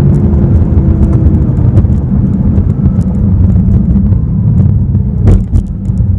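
2015 BMW M6 Gran Coupe's 4.4-litre twin-turbo V8 running under way with a heavy low rumble, its engine note easing off and fading in the first two seconds after hard acceleration. There is a sharp thump about five seconds in.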